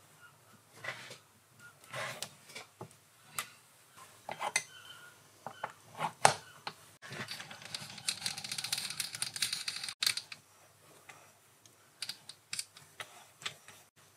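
Stainless steel disc and the lathe's three-jaw chuck being handled as the workpiece is re-clamped: scattered sharp metal clicks and knocks, with a spell of rapid clicking about halfway through.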